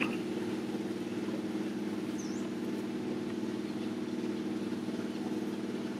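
A steady, even engine-like hum that holds one pitch throughout, with a brief faint high chirp about two seconds in.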